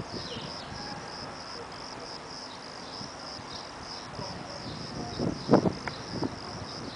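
Crickets chirping in a steady, fast-pulsing high trill, with a few soft knocks near the end.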